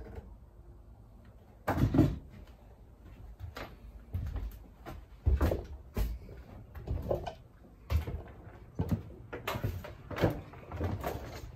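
Irregular knocks, clunks and rustling from someone moving about and handling things inside a plywood-lined cargo trailer, with the loudest thump about two seconds in.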